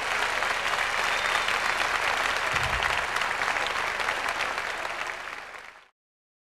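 Audience applauding, with a brief low thud nearly three seconds in; the applause fades and cuts off shortly before the end.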